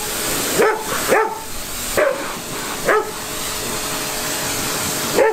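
A dog barking five times in short single barks over a steady hiss of water spraying as the motorbike is washed down.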